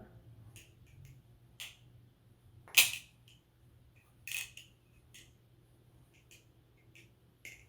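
Aluminum balisong (butterfly knife trainer) being handled and flipped: irregular sharp clicks and clacks of the handles and pivots, with one louder clack about three seconds in.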